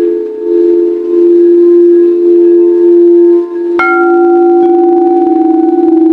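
Singing bowls ringing with a sustained low hum that wavers in level. Just before four seconds in, a bowl is struck, adding a brighter, higher ringing tone that carries on under the hum.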